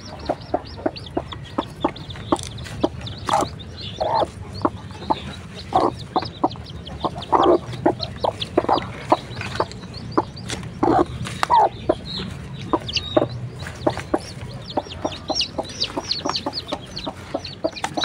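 Broody kampung hen clucking over and over in short, irregular calls while a hand reaches under her to take her newly hatched chicks, with the chicks cheeping in high thin notes.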